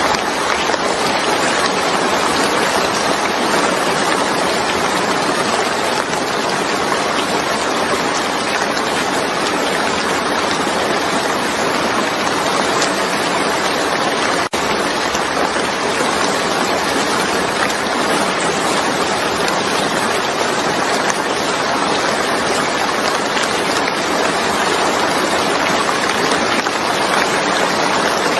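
Steady rain falling: an even hiss of countless drops that does not change, except for a momentary dip about halfway through.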